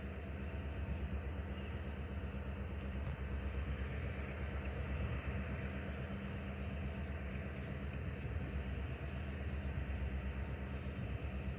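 A distant diesel locomotive is heard as a steady low rumble with a hum, before the train comes into view.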